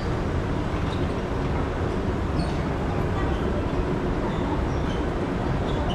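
Steady low rumble and hum of a moving escalator, heard while riding down on it.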